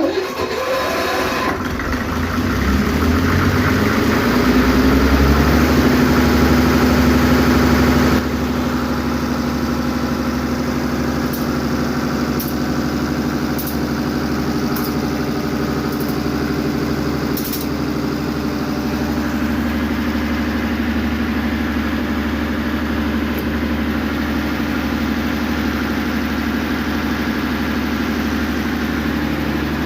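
Vintage Lister diesel generator engine starting on its electric starter: it spins up with a rising note over the first few seconds, changes note and drops a little in level about eight seconds in, then settles into steady running.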